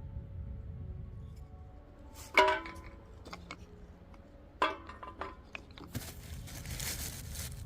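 Camping gear being handled: two sharp ringing clanks about two seconds apart, a few light clicks, then rustling and crunching near the end.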